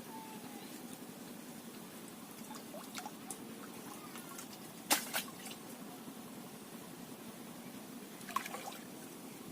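Water trickling and dripping, with a few sharp splashes: two strong ones about five seconds in and a short cluster near the end.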